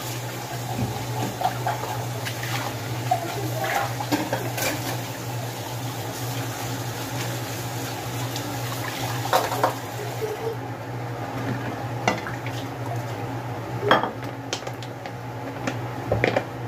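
Hand-washing dishes at a kitchen sink: tap water running while cups and ceramic plates clink and knock together. The running water stops about ten seconds in, and a few more clatters of dishes follow.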